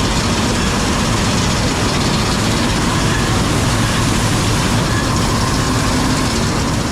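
Loud, steady running noise of electric machinery, an even rush with a low hum beneath it.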